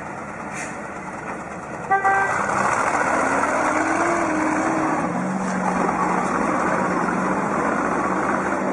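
A brief horn toot about two seconds in, then a military truck and an armoured scout car, joined by a tow rope, running their engines hard under load to drag through deep mud. The engine pitch rises and falls, then settles to a steady drone.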